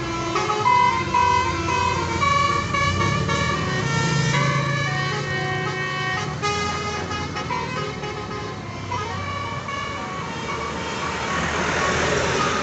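A bus's basuri musical horn (a telolet-style multi-tone air horn) playing a melody in quickly changing notes, over the low hum of the bus engine. A hissing noise builds near the end.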